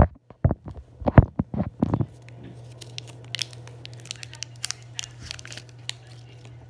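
Plastic wrapper of a chocolate bar being torn open and unwrapped by hand: a few loud sharp crackles in the first two seconds, then a long run of fine, quick crinkling.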